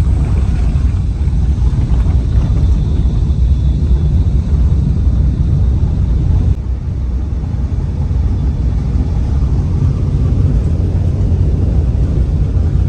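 Steady low rumble of a vehicle travelling along a road, heavy in the bass and dipping briefly a little past the middle.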